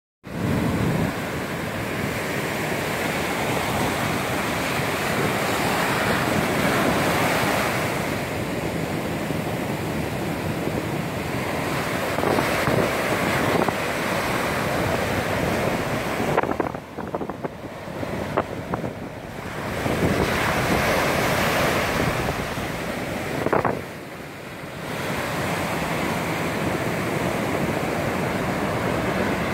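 Heavy surf breaking and washing up a sandy beach in a continuous rush, with wind buffeting the microphone. The rush dips briefly about two-thirds of the way through and again a few seconds later.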